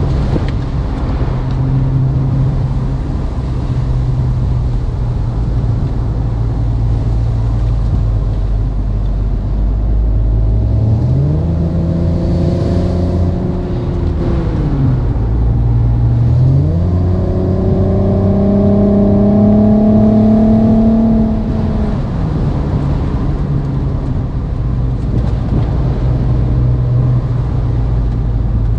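Synthesized sports-car engine and exhaust sound from an OBD2-linked app, played through the car's speakers and following the real engine's revs. It runs low and steady, climbs in pitch about eleven seconds in and drops back a few seconds later, then climbs again to a higher pitch, holds, and falls back to the steady low note a little past the twenty-second mark.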